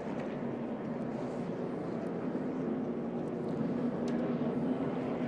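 NASCAR Cup Series stock cars' V8 engines running steadily as a pack goes by on the track.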